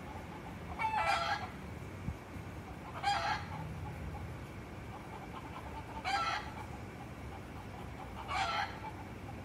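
Roosters calling: four short, shrill calls spaced about two to three seconds apart.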